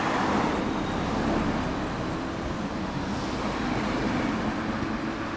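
Street traffic in a slow-moving queue: car and motorcycle engines running with a steady, even drone and no revving.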